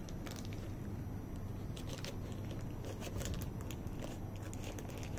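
Plastic courier mailer crinkling and crackling as it is cut open with not very sharp scissors and handled, a run of irregular small clicks and rustles.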